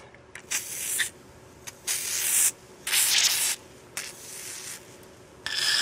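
WD-40 aerosol can sprayed through its extension straw onto and into a pistol barrel, in about five short hissing bursts with brief gaps between them.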